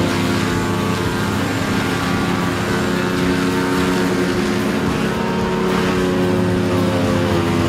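A large engine running steadily under load, its pitch drifting slightly up and down.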